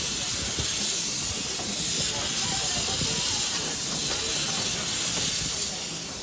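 Steady hiss of steam from a small ride-on garden-railway steam locomotive, heard from just behind its cab, with faint low knocks underneath; the hiss eases near the end.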